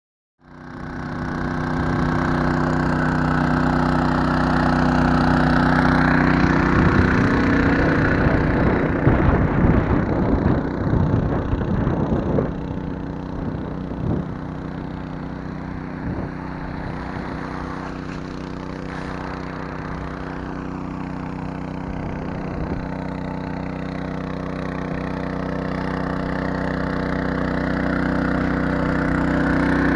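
Small petrol engine running steadily at an even speed, with a spell of irregular knocks and rattles over it for several seconds in the first half.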